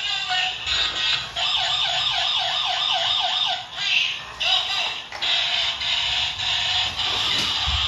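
Battery-operated toy police car playing electronic siren sound effects: a steady high tone broken by a fast yelping siren of quick rising-and-falling sweeps, about four a second, with short breaks as the pattern changes.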